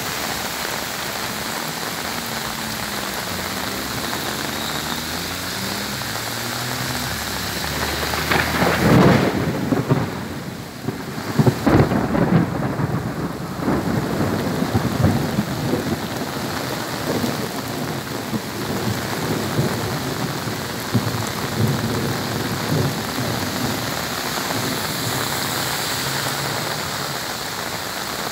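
Heavy rain pouring down steadily, with a long rumble of thunder rolling in about eight seconds in, crackling and peaking twice before fading back into the rain after several seconds.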